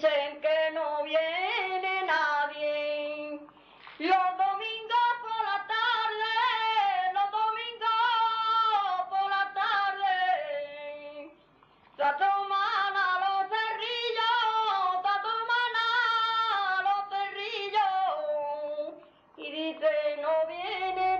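A woman singing unaccompanied a 'canción de soledad', a farm-work song in the Phrygian mode whose phrasing resembles classical flamenco forms. Long ornamented phrases with wavering pitch, broken by short breaths.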